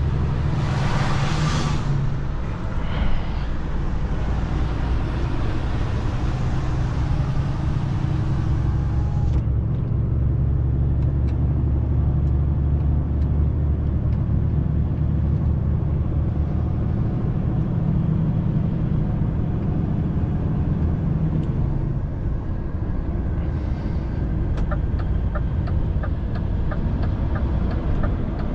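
Cab noise of a DAF heavy recovery truck under way, towing a loaded 26-tonne lorry on its boom: its diesel engine runs with a steady low drone. There is a brief hiss about a second in, and a regular ticking of the turn indicator near the end, ahead of the turn off onto the slip road.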